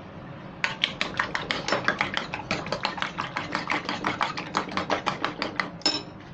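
Metal spoon beating eggs in a ceramic bowl, clinking quickly and evenly against the bowl about five times a second. The beating starts just under a second in and stops near the end.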